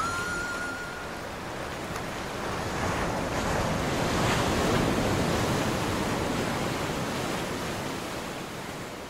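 Sea waves washing in: a steady wash that swells to its loudest around the middle and then slowly fades.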